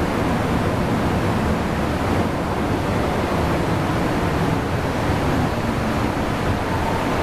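MTR M-Train (Metro-Cammell electric multiple unit) running into the station platform: a steady rushing rumble of wheels and air heard through the platform screen doors.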